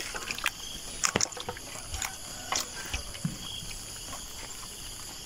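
Live fish flapping in a plastic basin and on wet mud: scattered light slaps and knocks, irregular, a few a second at most.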